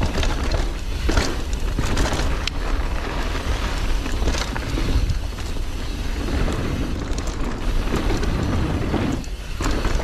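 Mountain bike riding down a dirt trail: tyres rolling over the ground and the bike rattling with frequent short knocks over bumps. Wind buffets the action camera's microphone with a constant low rumble.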